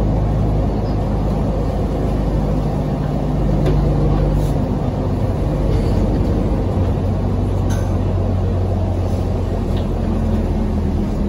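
Mercedes-Benz Citaro city bus heard from inside the passenger cabin while driving: a steady engine hum with road rumble and light rattles. The engine note drops to a lower pitch about halfway through.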